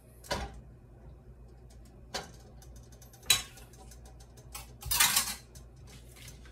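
Scattered clinks and knocks of dishes and kitchen utensils being handled, with the loudest cluster about five seconds in, over a faint steady low hum.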